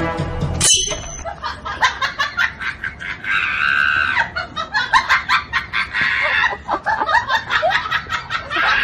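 Background music cuts off suddenly under a second in, followed by a person's high-pitched, breathless laughter with a drawn-out squeal partway through.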